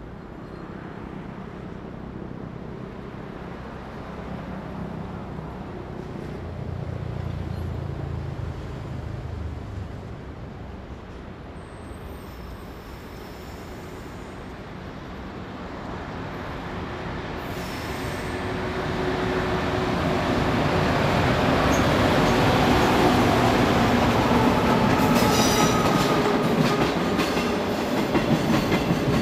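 JR Freight EF200 electric locomotive hauling a freight train, approaching and passing on a curve. Its running noise grows steadily louder from about halfway in, with a steady wheel squeal and, near the end, a clatter of wheels over rail joints.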